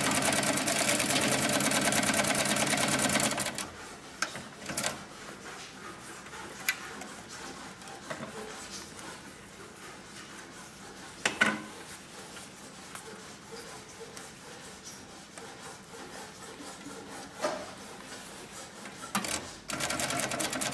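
Pfaff 335-type cylinder-bed, walking-foot industrial sewing machine running at a steady speed as it stitches a strip of material, then stopping about three and a half seconds in. A quiet stretch of scattered clicks and knocks follows, and the machine starts sewing again just before the end.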